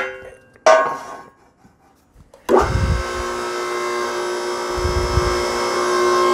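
A short metallic clank about a second in. At about two and a half seconds the press's 3 hp two-stage hydraulic power pack comes on with a thump and then runs with a loud, steady whine, driving the ram against a block to build pressure up to the relief valve's setting.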